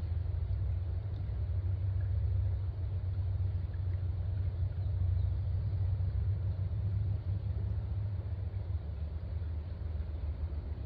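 Steady low rumble with a faint, even hiss of trickling creek water above it.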